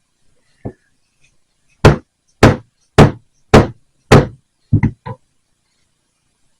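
Hammer striking a steel round end punch through leather: one light setting tap, then five hard evenly spaced blows about two a second, then three lighter quick taps.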